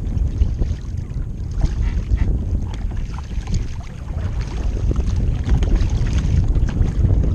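Wind buffeting the microphone in a loud, gusty low rumble, over small splashes and drips of water around a kayak.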